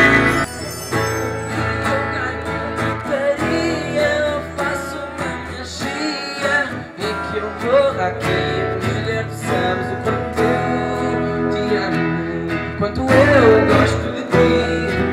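Two acoustic guitars strumming and picking a song's instrumental opening, after the previous song cuts off about half a second in.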